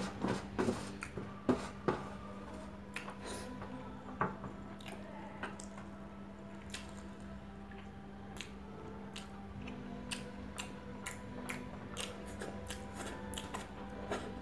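Eating rice by hand: fingers picking the last grains off a stainless steel tray, then chewing with scattered sharp mouth clicks. The loudest clicks come in the first two seconds.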